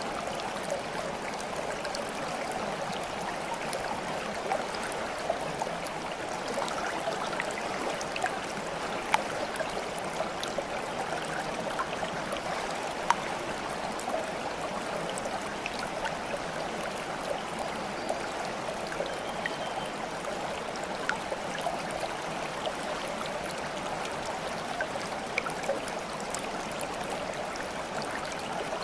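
Running water of a stream babbling steadily, with scattered small splashes and drips ticking over it.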